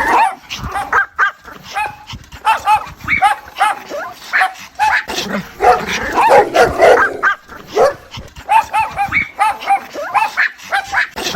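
Mother dog calling her puppies with a quick series of short, high whining yips, several a second, and a louder, denser run of calls a little past the middle.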